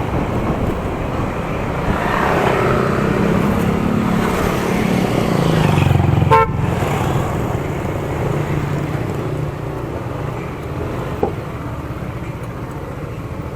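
Motorcycle engine and road traffic heard while riding, with one short vehicle horn beep about six seconds in.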